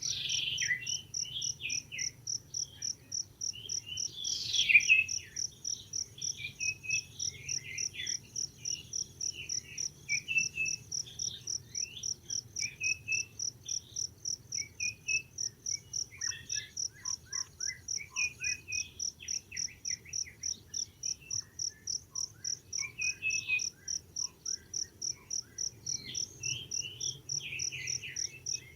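An insect chirping in a steady high pulse, about three pulses a second, with scattered short chirping calls over it; the loudest is a falling call about four to five seconds in.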